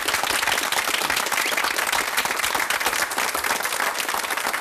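Studio audience applauding, many hands clapping steadily.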